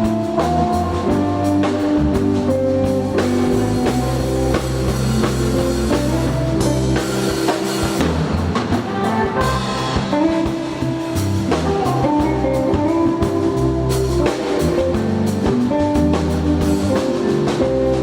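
Instrumental band music: melodic guitar lines over a steady bass and drum kit.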